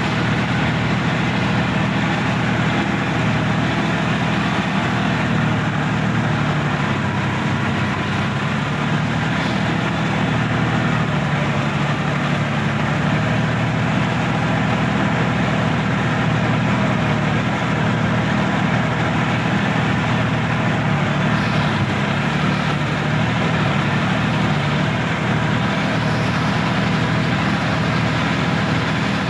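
Sonalika DI-50 RX tractor's diesel engine running steadily at low speed, heard close up from the driver's seat as the tractor moves along.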